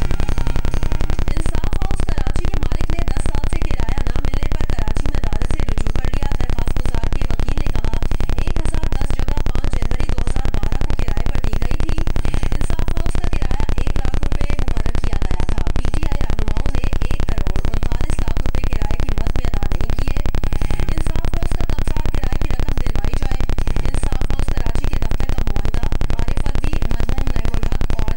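A loud, steady electrical buzz with static hiss.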